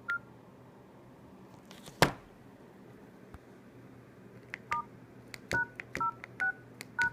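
Samsung E2202 mobile phone keypad beeping: five short two-tone key tones, each with a button click, as the IMEI code *#06# is keyed in. There is a single key beep at the start and a sharp click about two seconds in.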